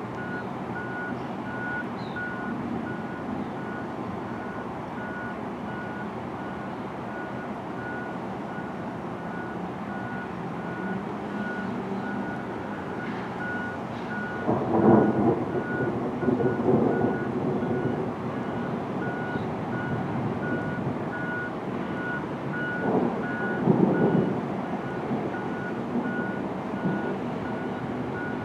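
A vehicle's reversing alarm beeps regularly in one high tone throughout. Two louder low rumbles swell up about halfway through and again near the end.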